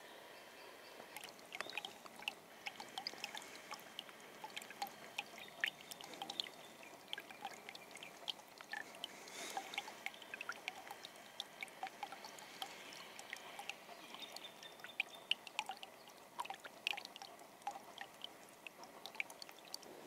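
Small snowmelt brook trickling between snowbanks, faint, with many small irregular drips and splashes.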